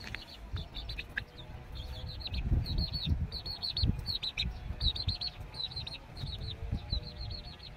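A young chicken chick peeping shrilly and insistently, in quick runs of short, downward-dipping cheeps, over a low rumbling noise on the microphone.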